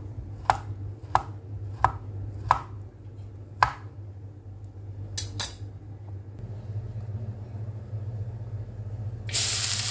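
Kitchen knife chopping through tempeh on a cutting board, five strokes about one every 0.7 s, then a couple of light clicks. Near the end, food goes into hot oil in a wok and starts a loud, steady sizzle. A low hum runs underneath.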